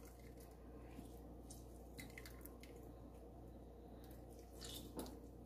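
Faint squelching and dripping of half a lemon squeezed by hand into a bowl of melted butter, with a few soft ticks and a slightly louder squeeze near the end, over a low steady hum.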